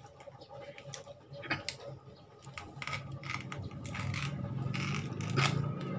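Small plastic toy cake pieces and pony figures clicking and clattering against each other in a string of light taps, the sharpest about five seconds in, over a low hum that grows louder in the second half.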